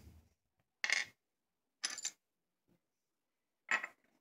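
Three short clicks and clinks of small metal scope-mount hardware being handled on a table, spaced about a second or two apart.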